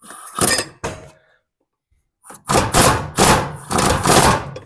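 Slide-hammer puller knocking repeatedly against a stuck mower blade hub to pull it off the engine's crankshaft: two knocks near the start, then a faster run of about six louder knocks, roughly three a second.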